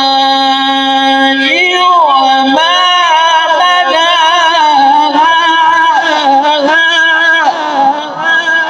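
Male Quran reciter's voice in melodic tajweed recitation. It holds one long steady note, then about a second and a half in breaks into ornate melismatic runs that waver up and down in pitch.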